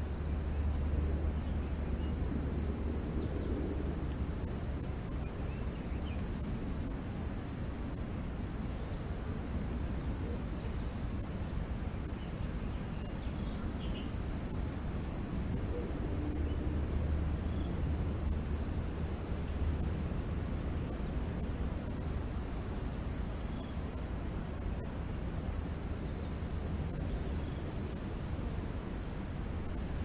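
Forest ambience: a steady, high insect trill, broken by short pauses every second or two, over a low continuous rumble.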